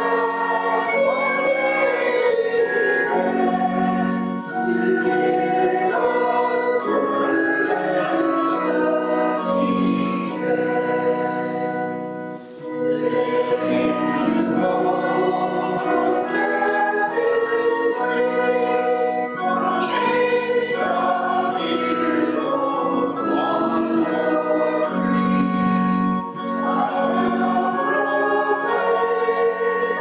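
A congregation singing a hymn with organ accompaniment, with a short break about twelve seconds in between verses.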